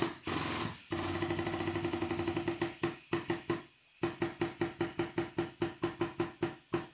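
Rhythmic squeaky clicks as the dent-pulling tower is pumped stroke by stroke, tightening the chain clamped to the car's rear panel. Quick at first, then steadying at about three strokes a second.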